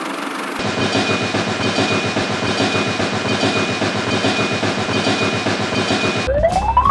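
Fast, even mechanical chugging, like a small engine or train running, with a thin steady whine above it; near the end it stops and a rising whistle sweeps up in pitch.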